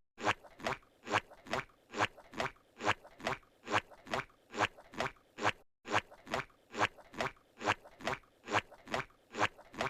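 Squidward's cartoon walking sound effect: squishy footsteps, evenly paced at a little over two steps a second. The loop breaks off for a split second about halfway through.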